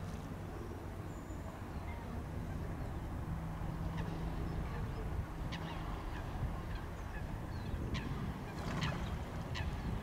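Waterbirds calling: several short, sharp calls in the second half, over a steady low rumble with a faint low hum in the middle.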